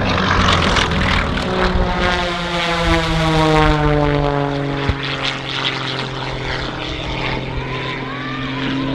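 Aerobatic propeller planes' piston engines and propellers running hard through a low display pass. The engine note drops in pitch as a plane goes by, from about two to five seconds in, then holds a steady drone.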